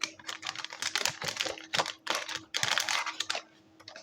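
Spice container being shaken over fish as it is seasoned: quick clicking rattles in about five short bursts, stopping about three and a half seconds in.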